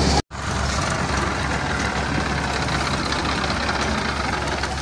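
Diesel engines of farm machinery, a tractor and a combine harvester, running steadily at idle-like speed. The sound cuts out briefly just after the start.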